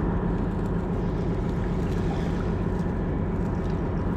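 Steady low mechanical hum of ships lying at anchor in the distance.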